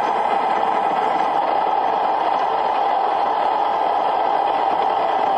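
Large stadium crowd cheering steadily, with no break, on an old radio broadcast recording that cuts off the high end.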